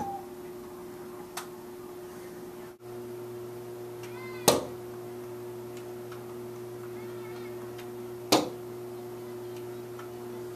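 Two sharp snaps of a Nerf dart blaster firing, about four seconds apart, over a steady low hum.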